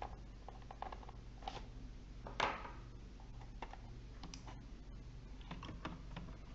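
Scattered small clicks and taps from working a screwdriver and handling the plastic case and hard drive of a laptop to free the last screw, with one sharper click about two and a half seconds in.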